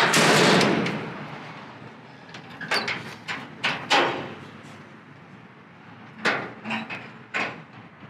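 A short, loud burst of hiss fading over about a second, then a string of sharp metallic knocks and clacks from the parked M809 5-ton military truck, about eight in all, some in quick pairs.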